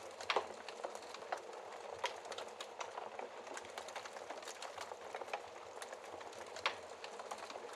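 Wood fire crackling in a fireplace: a steady soft hiss with dense, irregular crackles and a few sharper pops.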